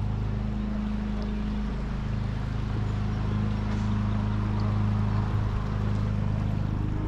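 A steady low motor-like hum with a faint hiss over it.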